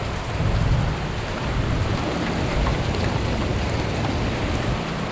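Torrential thunderstorm rain falling, a dense steady rush of heavy rain, with a low rumble of wind or thunder underneath.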